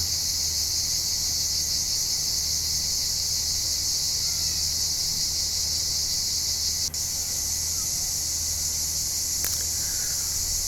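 Steady, high-pitched chorus of insects trilling without a break, with one brief click about two-thirds of the way through.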